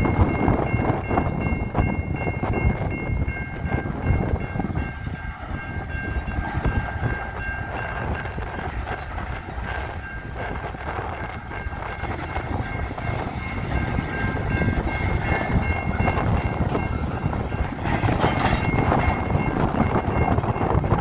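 Freight train of covered hopper cars rolling through a road crossing, steel wheels clattering and rumbling over the rails. A crossing-signal bell rings steadily over it.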